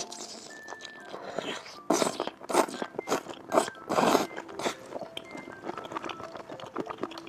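Close-up eating sounds of seafood being bitten and chewed, with a run of about six loud crunches between about two and five seconds in and quieter chewing around them.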